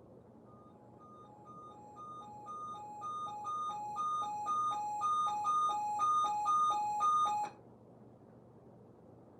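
Electronic alert tone alternating between a high and a low beep, about four beeps a second, growing steadily louder for about seven seconds and then cut off abruptly.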